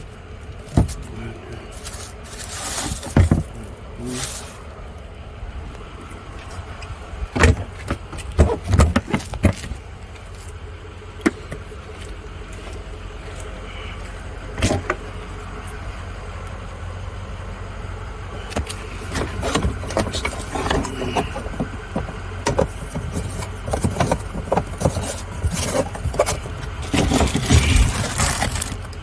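A steady low rumble with scattered clicks, knocks and rattles, busiest about a third of the way in and again over the last third.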